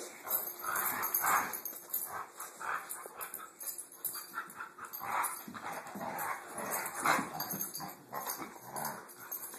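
Two dogs play-fighting, a blue heeler and a tan short-haired dog, making dog vocal noises in short, irregular bursts as they wrestle and mouth at each other.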